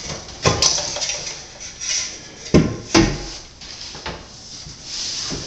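Hard knocks, clicks and scraping of marble tile and tiling tools being handled and set in thinset. Two sharp knocks about halfway through are the loudest.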